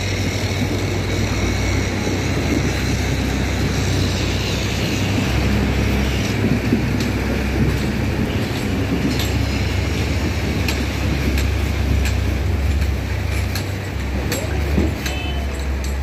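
Heavy diesel truck engine running under load, a steady low rumble, as the truck drives through deep mud and floodwater, with scattered clicks and knocks from about six seconds in.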